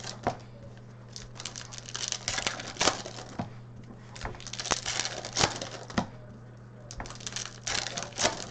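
Hockey trading card packs being handled: foil wrappers crinkling and tearing, and cards slid and flicked against each other in quick irregular clicks, over a steady low hum.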